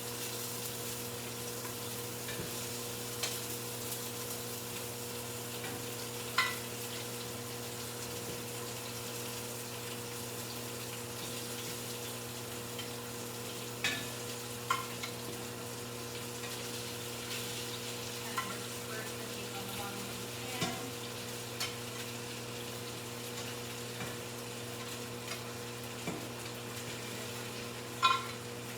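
Flour-dusted beef searing in hot oil, a steady sizzle, with a few sharp clinks of a utensil against the pan.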